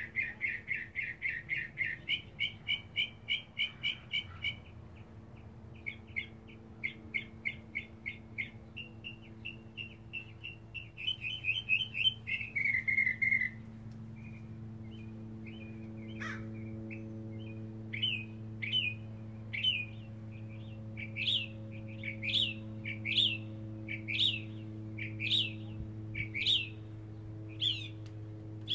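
Northern mockingbird singing, running through a string of different phrases, each repeated several times: fast trains of short notes in the first half, then a series of sharp slurred notes about one a second. A steady low hum runs underneath.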